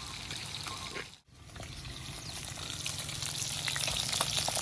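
Small fish with roe frying in hot oil in a wok over a campfire: steady sizzling with scattered crackles. The sound cuts out briefly about a second in, then grows louder toward the end.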